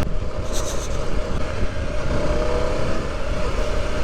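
Off-road motorcycle engine running steadily while riding a dirt trail, with a few short clicks about half a second in.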